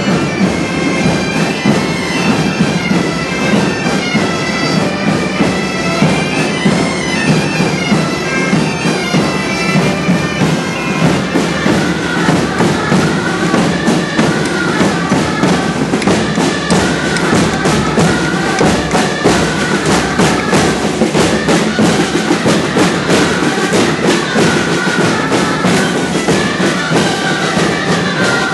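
A band of Catalan bagpipes (sacs de gemecs) playing a marching tune over their steady drone. About twelve seconds in, regular drumbeats come in and a shrill reed melody from gralles takes over.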